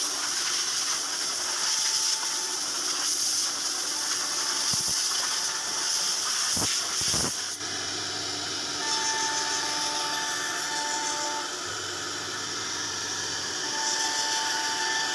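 CNC router running: a steady hiss with a whining tone that comes and goes, and a few light knocks partway through.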